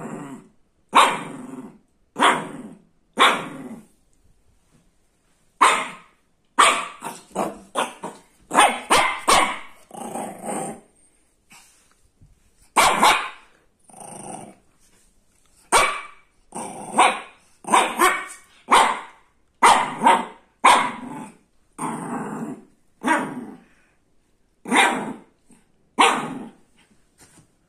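A Shih Tzu puppy barking repeatedly: about thirty short, sharp, high barks, some single and some in quick runs, with brief pauses between bouts.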